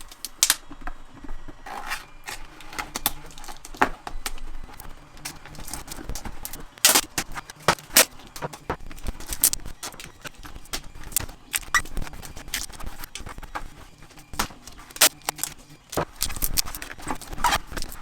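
Irregular clicks, taps and light scrapes of hard objects being handled, in no steady rhythm.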